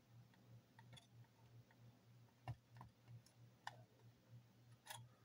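A handful of faint, sharp clicks and taps of plastic model-kit parts being handled and pressed into place, as undercarriage legs are pushed into a plastic 1/72 scale kit airframe; the sharpest click comes about halfway through.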